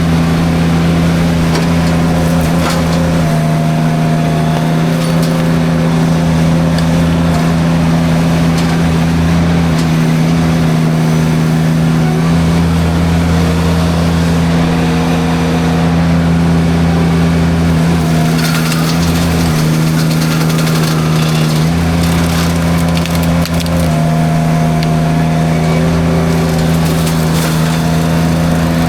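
Derette V1000 mini skid steer running steadily under load with its forestry drum mulcher spinning, with bursts of crackling and snapping as the mulcher chews through brush, thickest about two-thirds of the way in and again near the end.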